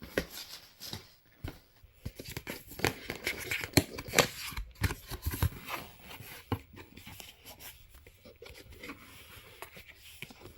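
A cardboard product box being opened by hand and its packed contents handled: an irregular run of clicks, scrapes and rustles of cardboard and packaging, busiest in the first half.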